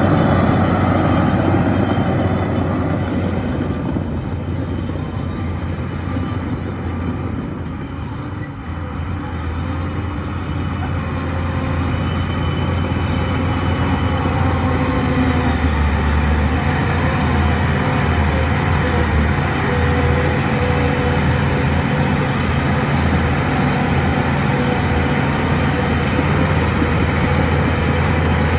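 A Shantui crawler bulldozer's diesel engine running under load with a steady low drone. It eases off a few seconds in and builds back up to full power by about twelve seconds, then runs steadily.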